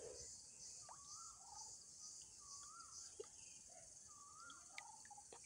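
Faint outdoor ambience: a steady high insect drone, with a bird repeating a short wavering call every second or so.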